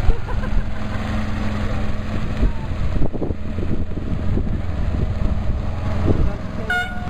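Engine of a miniature road train running with a steady low hum and scattered knocks as it carries its carriages past and away; the hum drops off about six seconds in. Near the end the train's horn gives one short toot.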